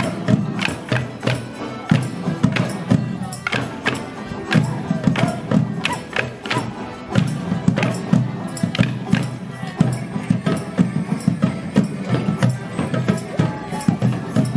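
Morris band of melodeons and drums playing a lively folk dance tune, with sharp percussive hits falling steadily on the beat.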